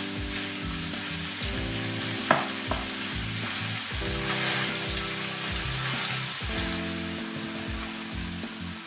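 Cabbage, carrot and minced meat sizzling in a frying pan while being stirred with a wooden spatula. A sharp knock of the spatula against the pan comes a little over two seconds in, followed by a lighter one. Soft background music with held chords plays underneath.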